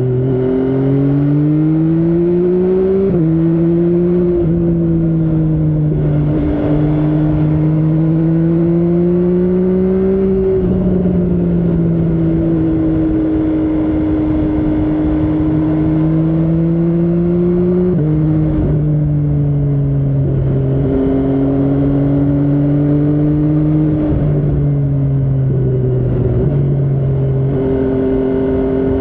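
MV Agusta Brutale 800 inline three-cylinder engine under way, its pitch climbing and easing off through the gears with several sudden drops and jumps from gear changes.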